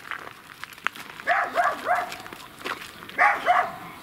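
A dog barking in two short runs: three quick barks a little over a second in, then two more near the end.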